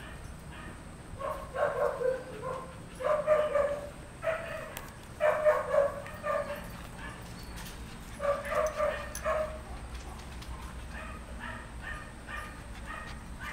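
Young puppies yipping and whining in several short bursts of high cries, with fainter, quicker whimpers repeating near the end.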